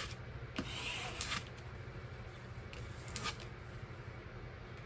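Brief rustle of a diamond painting canvas and its plastic cover film under a hand in the first second or so, with a few faint clicks, then low steady room noise.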